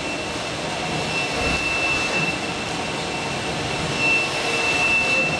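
High-speed top-loader pick-and-place robot running: a steady mechanical hum with a thin, steady high-pitched whine over it.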